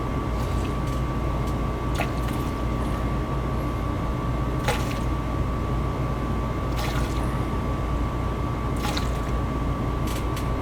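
Vinegar poured through a funnel into a 90% gas furnace's condensate drain, to clear slime from a slow condensate pump. Under it is the steady hum of the running furnace, with a thin constant whine and a few soft clicks.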